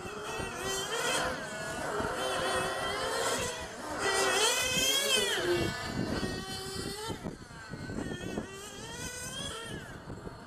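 Small two-stroke nitro engines of 1/8-scale RC GT cars revving up and down as they lap the track, several engines overlapping at different pitches. The loudest pass comes about four to five seconds in.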